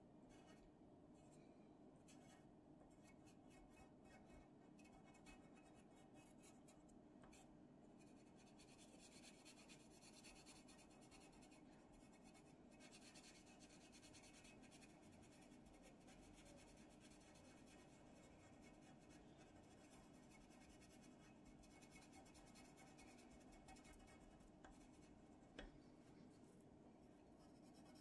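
Faint pencil scratching on paper as small strokes are sketched, busiest through the middle, over a faint steady hum. One sharp click near the end.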